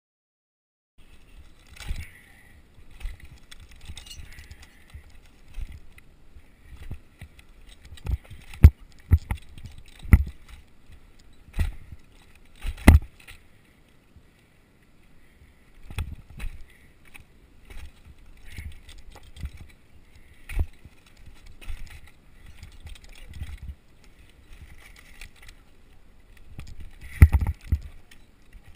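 A climber descending a pine trunk on climbing spikes and a rope lanyard: irregular sharp knocks and thuds as the spikes stab into the bark, with clinking gear and scuffing against the tree. The knocks come thickest about a third of the way in and again near the end.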